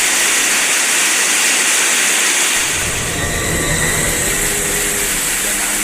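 Heavy rain and strong wind making a loud, steady hiss.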